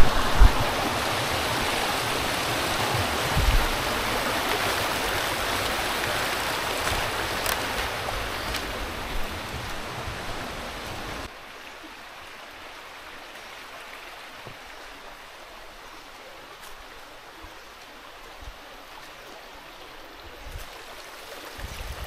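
River water rushing steadily, which drops suddenly about halfway through to a much quieter, steady flow.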